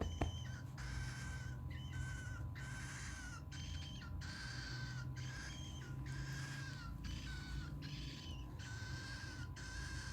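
Cockatiel making a steady run of raspy, hissing calls while feeding, each with a thin whistle through it, a little over one a second.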